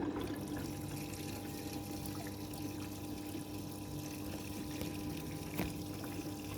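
Washing machine moving water, with a steady hum and the rush of water. A single small knock about five and a half seconds in.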